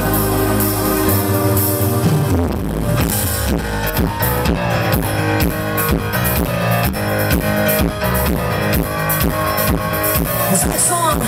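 Live dance-pop band playing through a PA: sustained synthesizer chords, then a steady driving drum beat comes in about two and a half seconds in, at about two beats a second.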